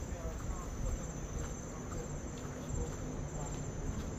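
Insects trilling steadily in one high, unbroken tone, with a low rumble underneath.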